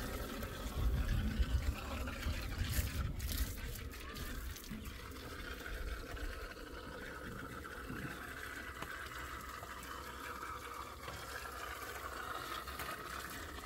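Garden hose running water into a cinder-block basin, a steady pouring and splashing, with a rumble in the first few seconds and a few sharp clicks about three seconds in.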